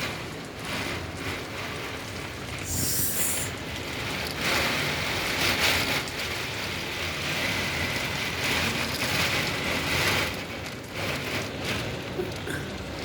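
Heavy rain pouring down as a continuous hiss. It swells louder from about four seconds in until about ten seconds, then eases back.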